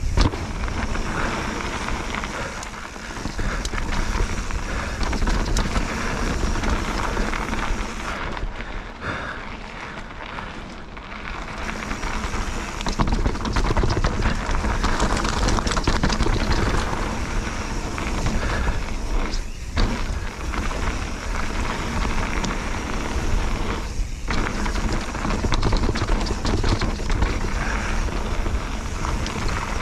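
Bird Aeris 145 mountain bike riding down a rough bike-park trail: tyres rolling over stone and the bike rattling in a steady noisy rumble. It eases off for a few seconds about eight seconds in, with two brief breaks later.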